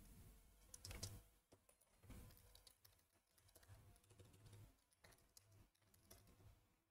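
Near silence with faint computer-keyboard typing: a few soft key clicks, the most audible about a second in.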